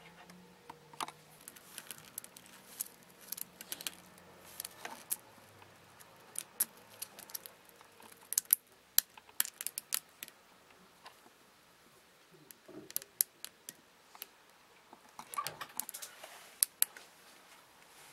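Two stag beetles, a Japanese giant stag beetle and a rival, grappling with locked mandibles: irregular sharp clicks and scrapes of hard shells, jaws and claws against each other and the bark, coming in clusters.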